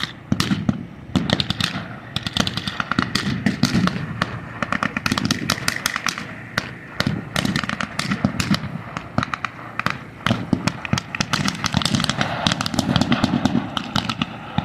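Battle-reenactment gunfire with blanks: a continuous crackle of many overlapping rifle and automatic-weapon shots, several a second.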